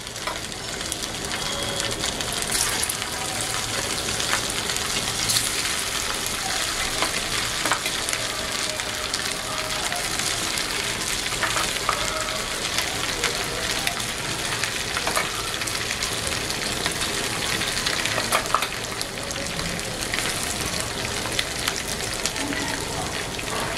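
Marinated boneless chicken 65 pieces deep-frying in hot oil in a kadhai: a steady crackling sizzle with many small pops, which comes up about half a second in.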